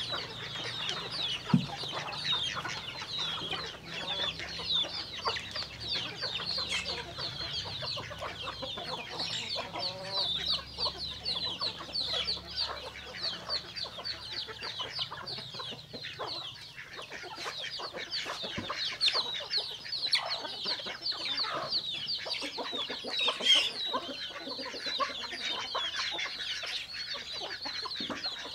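A flock of chickens calling, with a dense, continuous chorus of short, high peeping calls and clucks. There is one sharp tap about one and a half seconds in.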